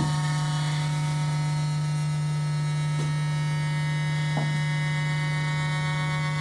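Steady electronic drone from a tabletop electric guitar and effects-pedal rig: one loud low hum with many held higher tones above it, unchanging, with a couple of faint clicks past the middle.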